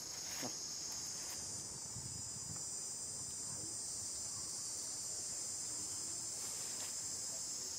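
Steady, high-pitched chorus of insects shrilling without a break, with a few faint taps about half a second in and again near the end.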